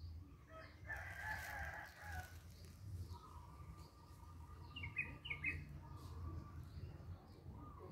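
Faint bird calls: a rooster-like crow lasting about a second and a half, starting about a second in, then a thin held call and a few quick chirps around the middle, over a low rumble.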